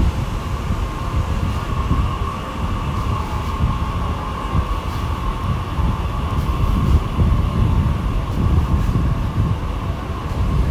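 Steady city background noise: a low rumble that rises and falls, with a steady mid-pitched hum over it.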